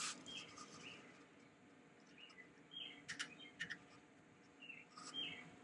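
Faint bird chirps in the background. A few light clicks come about three seconds in and again near the end as the safety clip is pushed back onto the Fumoto oil drain valve.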